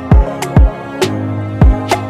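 Background music: deep bass-drum hits that drop in pitch, over held chords.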